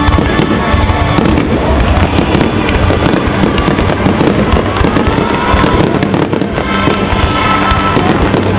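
Fireworks bursting and crackling in a dense barrage over background music. The music stands out most clearly at the start and near the end.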